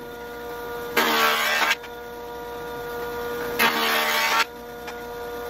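Jointer motor running with a steady hum, and two loud passes of a wood blank over the spinning cutterhead, about a second in and again past halfway, each lasting under a second as the knives plane the face flat.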